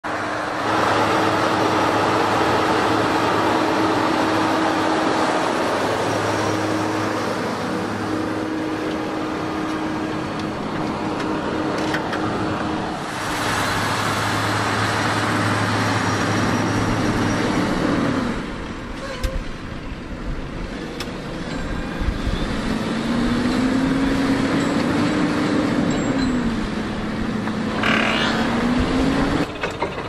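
Fendt 939 Vario tractor's six-cylinder diesel engine running under heavy load while pulling a deep plough. The engine note holds steady for the first half, then is quieter and rises and falls in pitch near the end.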